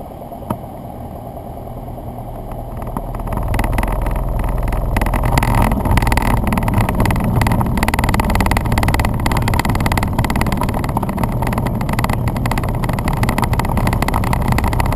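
Cessna 172N Skyhawk's four-cylinder Lycoming O-320 engine and propeller running, heard from the cockpit as the plane rolls along the runway. The sound grows louder about three seconds in and then holds steady.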